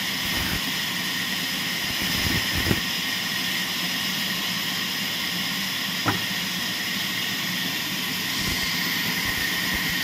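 Large wood-cutting band saw running with a steady, even whirring hiss. Two short sharp knocks stand out, as blocks of wood are handled on the saw table.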